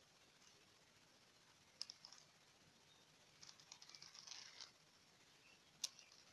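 Near silence with a few faint clicks: a sharp one about two seconds in, a short run of small clicks and rustling near the middle, and another sharp click near the end. It is handling noise around the homemade toy car, with no motor running.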